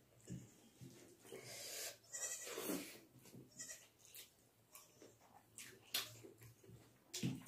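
Close-up eating sounds of rice and curry eaten by hand: wet mouth smacking and chewing, with scattered short clicks. A louder drawn-out sound comes about two seconds in.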